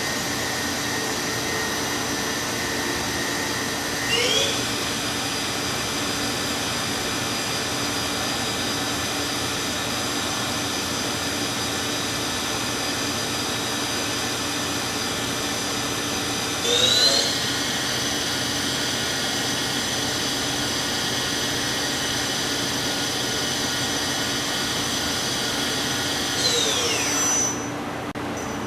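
Mori Seiki MV-Junior vertical machining center's spindle running with a steady high whine. It steps up in speed about four seconds in and again around seventeen seconds, then winds down and stops near the end.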